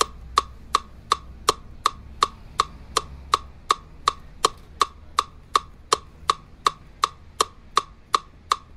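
Steady clock ticking, evenly spaced at a little under three ticks a second, over a faint low hum.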